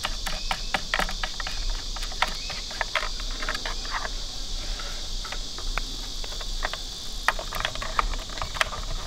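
Steady high-pitched chorus of insects in the surrounding trees, with scattered small clicks and taps as wires are worked into the gate opener's plastic control box and circuit board.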